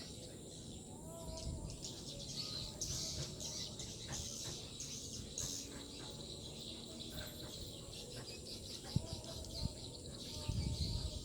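Swiftlets twittering in rapid, high chirps, densest a few seconds in. A low rumble comes near the end.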